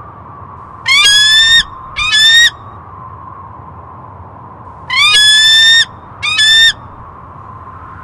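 Eagle calling: two pairs of loud, high-pitched screams, each pair a longer note followed by a shorter one, with the pairs about four seconds apart. Each note rises slightly in pitch. A faint steady tone runs underneath.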